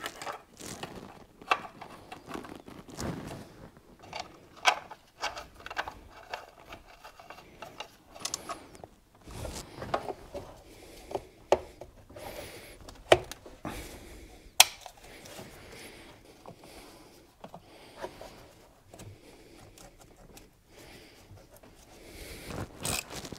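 Hoses and their clips being pushed onto and fitted around a plastic engine water pump by hand: irregular clicks, knocks and rubbing of rubber and plastic, with a few sharper snaps.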